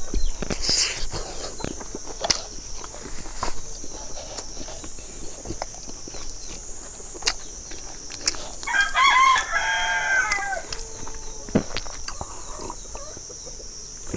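A rooster crows once, a stepped call of about two seconds past the middle. Close-up chewing and lip-smacking clicks run through.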